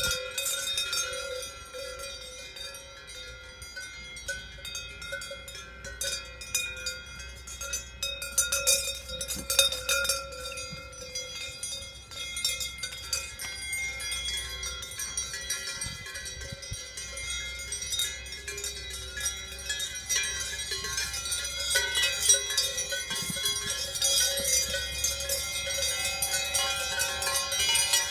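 Cowbells worn by Holstein cows ring and clank unevenly as the cows run and trot about. The ringing grows louder over the last few seconds.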